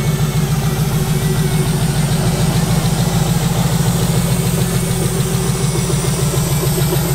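Twin-turbocharged LS V8 engine idling steadily, with a rapid, even pulsing rumble.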